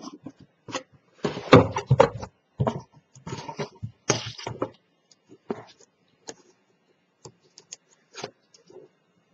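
Paper and chipboard pieces being handled and set down on a cutting mat: irregular rustles, taps and knocks. The loudest clatter comes a little over a second in and again around four seconds, then sparser taps.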